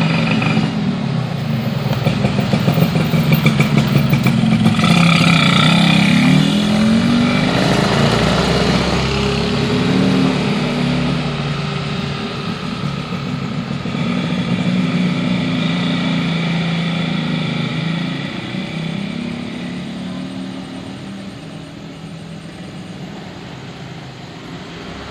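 Motorcycles and cars passing one after another on a street, their engines rising and falling in pitch as they go by. The loudest passes come a few seconds in, a second swell follows in the middle, and the traffic dies down toward the end.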